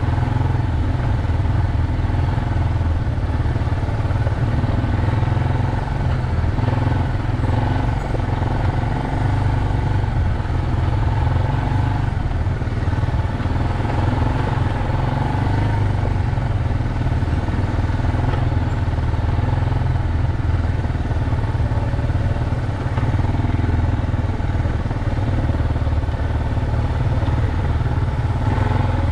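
ATV (four-wheeler) engine running steadily at a low, even pitch as it rides along a rutted dirt trail.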